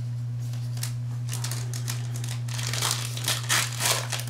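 Foil wrapper of a Select WWE trading-card pack crinkling as gloved hands handle it and open it, in irregular bursts that grow louder in the last second and a half. A steady low hum runs underneath.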